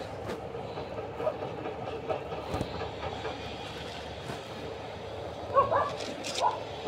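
Steady background noise, then a dog barking a few short times near the end.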